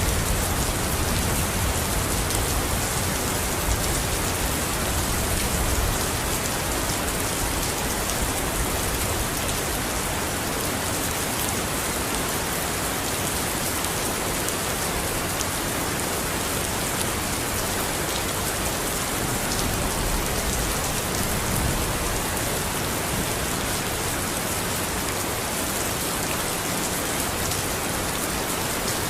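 Steady heavy rain falling. A low rumble of thunder dies away in the first few seconds.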